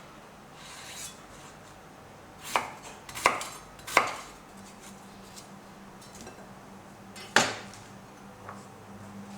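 A knife chopping on a cutting board: four sharp, unevenly spaced strokes, three close together and one a few seconds later. A low steady hum starts about halfway through.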